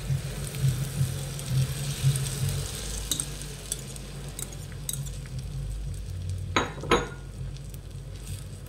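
Beaten egg mixture sizzling in hot melted butter in a non-stick frying pan as it is poured in and spread, with a metal spoon scraping and tapping on the pan; two sharper clinks of the spoon about two-thirds of the way through.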